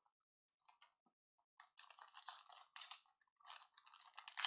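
Foil trading-card pack wrapper and cards being handled, giving faint crinkling and rustling. A couple of soft clicks come first, and the crinkling starts in irregular spurts about a second and a half in.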